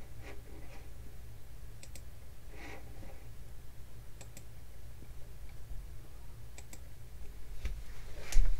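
Computer mouse clicking, a few scattered clicks spaced a second or more apart over a steady low hum, with a louder thump near the end.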